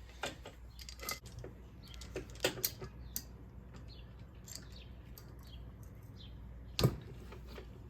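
Scattered light metallic clicks and taps of hand tools and small valve parts being handled on a cylinder head, with one sharp knock about seven seconds in, over a steady low hum.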